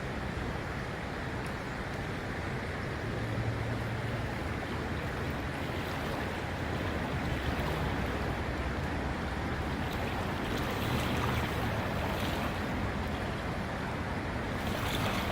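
Steady rushing of creek water flowing high and fast.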